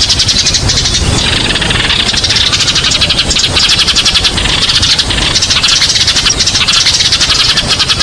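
A flock of Eurasian tree sparrows chirping continuously, many birds calling at once in rapid, overlapping chirps, over a low background rumble.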